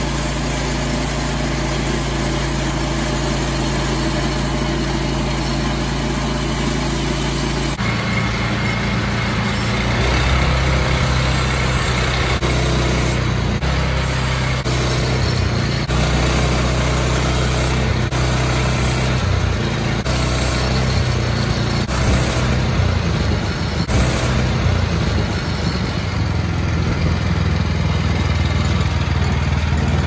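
Wood-Mizer LX25 portable band sawmill running steadily. About eight seconds in the sound turns rougher as the blade saws a board off a squared log cant.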